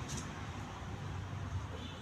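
Steady background noise, a low rumble under a soft hiss, with a brief sharper hiss right at the start.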